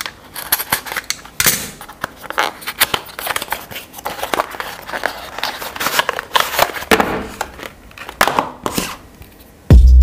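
Close-up handling sounds of a small cardboard charger box being opened: a utility knife blade scraping through the seal, then the cardboard flaps and inner tray scraping and clicking as the box slides open. A steady run of short scrapes and taps.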